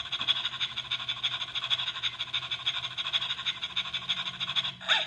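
Animated toy dog's electronic dog-sound effect, set off by squeezing its nose: a thin, fast-pulsing noise that runs on without a break, then two short separate yaps near the end. A faint low steady hum sits underneath.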